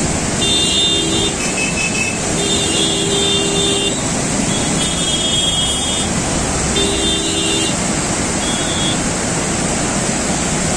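Flood-swollen river rushing in a steady, heavy wash of water noise. Over it, vehicle horns honk in short blasts of about a second, six or seven times.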